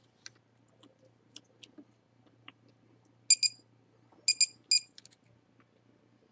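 Quadcopter giving five short, high power-up beeps as its LiPo battery is plugged in, two and then three, about three seconds in. They are preceded by light clicks of the battery lead and connector being handled.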